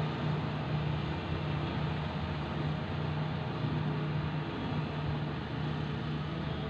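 Diesel engine of a heavy earthmoving machine running steadily, a continuous low hum over an even mechanical noise.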